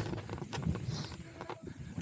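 Hardtail mountain bike rolling fast down a dirt singletrack: low tyre rumble with a dense run of clicks and knocks as the bike rattles over the ground, easing a little in the middle.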